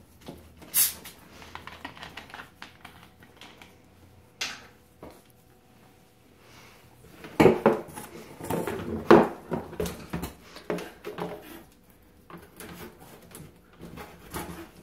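Handling noise of a plastic soda bottle and clear plastic tubing: scattered clicks, knocks and plastic rustling as the bottle is fitted and set down into a white box, with a denser run of knocks and rustles about halfway through.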